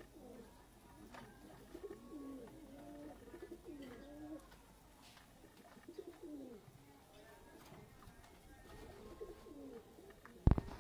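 Domestic pigeons cooing, a run of low curving coos one after another, with a sharp knock near the end.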